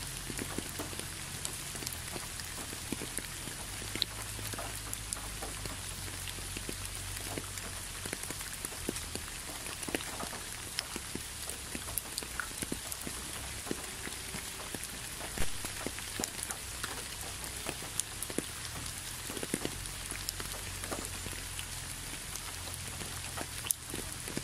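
Steady rain: an even hiss with many separate drops ticking close by, one louder drop about fifteen seconds in.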